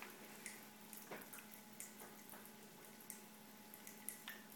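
Pop Rocks candy crackling in water in a small test tube: faint, scattered tiny pops at irregular intervals, roughly one or two a second, as the candy releases its carbon dioxide, over a faint steady hum.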